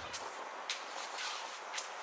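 Sharp taps, evenly spaced about twice a second, over a steady hiss.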